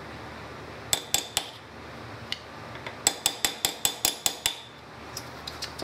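Sharp metallic taps of a tool striking a screwdriver wedged against a rusted golf cart electric motor's end cap, used in place of a hammer to drive it loose. Three taps come about a second in, then a quicker run of about eight.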